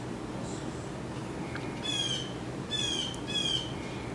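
Blue jay giving three short, harsh, slightly falling calls: one about halfway through and two close together near the end, over steady low background noise.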